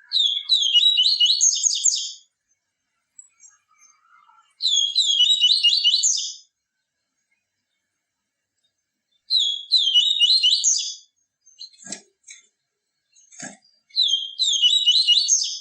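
A papa-capim seedeater singing four song phrases a few seconds apart. Each phrase lasts about two seconds and is a fast run of repeated high, chirping notes. Two faint short taps come between the third and fourth phrases.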